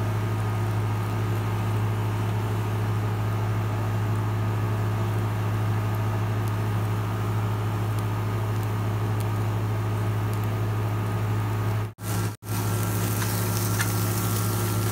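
A steady low hum from a running machine, even and unchanging, that drops out twice for an instant near the end.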